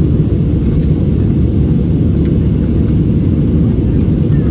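Steady low rumble inside the cabin of an Airbus A320-216 in its climb after takeoff: the CFM56 turbofan engines and the airflow over the fuselage, heard from a window seat behind the wing.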